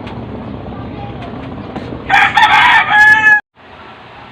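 A rooster crows once, loud, for just over a second about two seconds in, ending on a held note, over a steady low background hum; the sound then cuts off suddenly.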